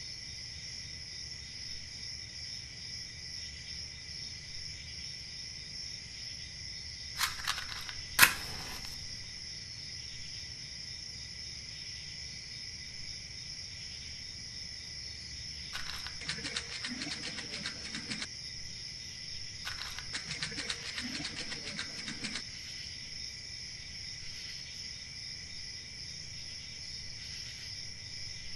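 Crickets chirring steadily, a night-time insect chorus. Two sharp clicks come about seven and eight seconds in, the second the loudest sound, and later two stretches of fine rapid clicking and rustling, about two seconds each.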